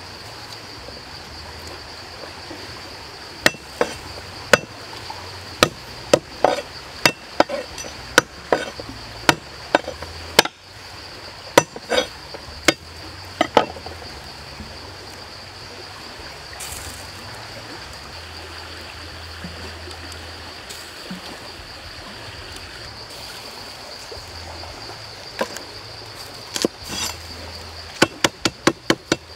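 Cleaver knocking on a cutting board: an irregular run of sharp chops, a pause, then a quicker run of chops near the end. A steady high insect drone runs underneath.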